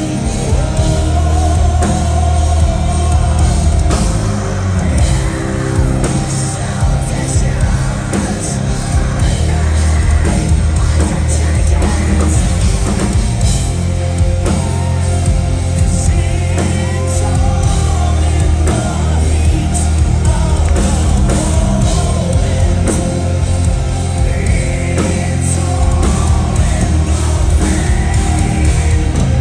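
Metal band playing live in a concert hall: singing over loud bass and drums, steady and unbroken.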